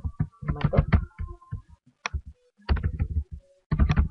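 Computer keyboard typing: quick runs of key clicks with short pauses between them.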